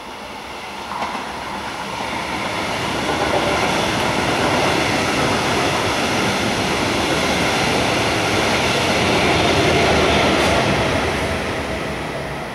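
A double-deck push-pull passenger train, with a class 146 electric locomotive pushing at the rear, running past at speed. The noise of wheels on rail and running gear swells over the first few seconds, stays loud, and eases near the end as the train passes under the bridge.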